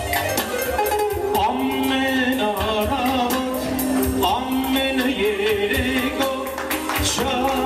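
Music: a song with a singing voice holding and bending long notes over a steady, rhythmic accompaniment of plucked or strummed strings and percussion.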